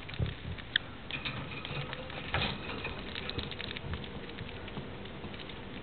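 Budgerigars pecking food from a white spoon with their beaks: a quick, irregular run of small clicks and crunches. A brief high note sounds about a second in.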